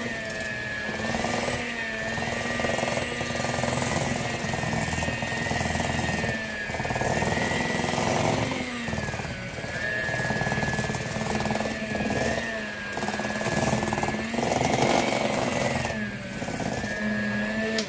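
Electric hand mixer running, its beaters working thick tea-cake dough as flour is mixed into the creamed butter, sugar and eggs in a stainless steel bowl. A steady motor whine wavers slightly in pitch, with recurring louder churning stretches, and it stops at the very end.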